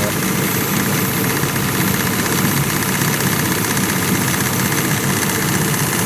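Chevrolet Blazer's Vortec engine idling steadily, heard up close under the open hood.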